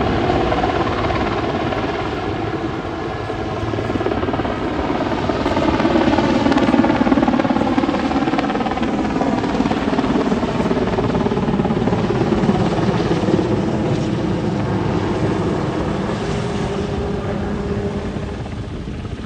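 Super Puma twin-turbine transport helicopter flying a display pass: loud rotor and turbine noise whose pitch slides and falls as it moves through the air, loudest about a third of the way in.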